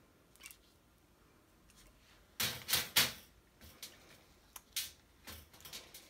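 Hand snap pliers handled and set down on a perforated metal tray: a quiet couple of seconds, then three sharp clicks and clatters in quick succession, followed by lighter scattered clicks.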